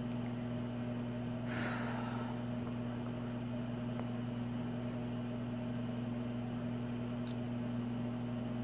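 Steady electrical hum of a running appliance or motor, even and unchanging. About a second and a half in there is one short audible breath.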